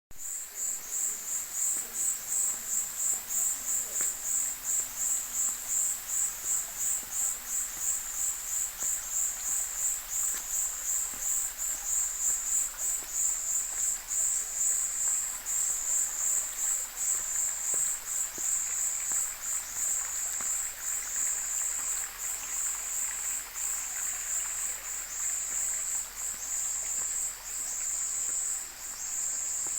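A high-pitched insect chorus, cricket-like, pulsing in a fast, steady rhythm.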